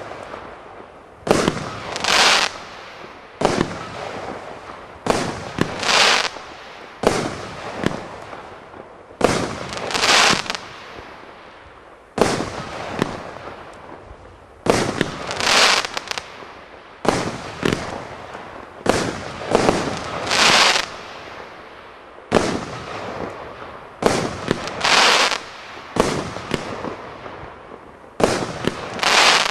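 Consumer firework compound battery firing shot after shot, every two seconds or so. Each shot is a launch pop followed about a second later by a loud bang that trails off.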